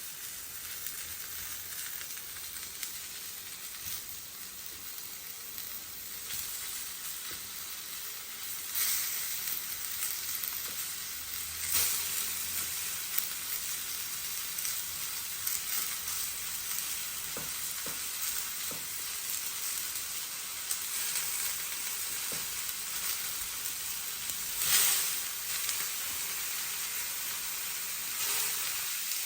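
Raw chicken pieces sizzling as they go into hot sunflower oil with browned onions. The hiss is steady, and it flares louder three times as fresh pieces hit the oil.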